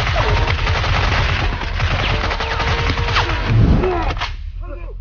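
Rapid automatic gunfire, a machine-gun sound effect, that stops a little after four seconds in.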